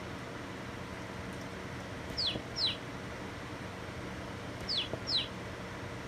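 DAYOO chick-shaped kids' alarm clock sounding its chick alarm: two cheeps falling in pitch, repeated twice about two and a half seconds apart, over a steady hiss.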